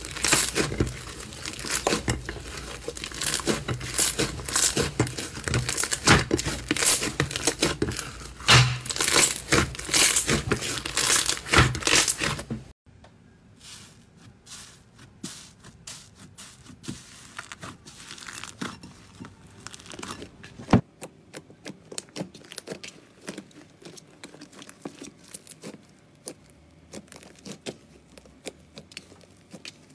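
Hands kneading and squeezing slime, with dense, loud crackling and popping of trapped air. About 13 seconds in it cuts to softer, sparser crackles and squishes as fingers press and stretch pink slime, with one sharp click about two-thirds of the way through.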